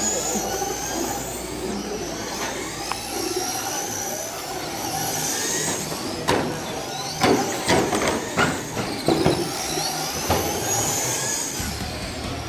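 RC race cars running on the track, their high motor whines rising and falling as they pass. Partway through comes a run of sharp clacks.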